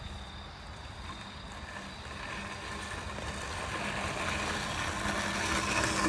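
Luba 5000 robotic lawnmower running as it cuts grass, a steady motor hum with a whirring hiss that grows gradually louder as it draws closer.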